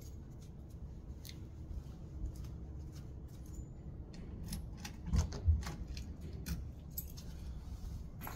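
Keys jangling and clicking at a door's lever lock as it is unlocked. Two dull knocks come about five seconds in as the door is worked open, and a sharp click comes near the end.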